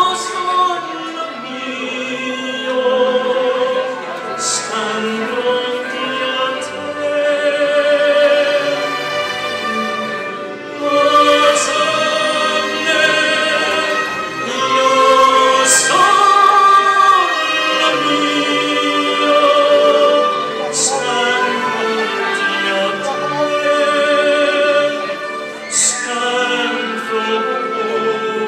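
Operatic solo singing into a microphone, with long held notes and a wide vibrato.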